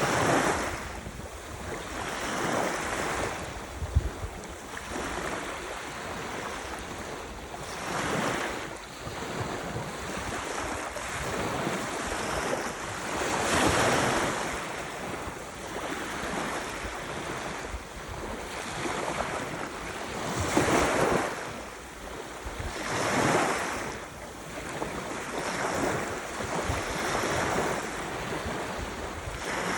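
Ocean surf: waves breaking and washing in, swelling and easing every few seconds, with a brief low thump about four seconds in.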